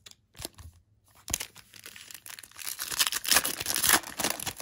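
Foil wrapper of a trading card pack being torn open and crinkled. A few light clicks come first, then steady crackling and tearing from about two seconds in.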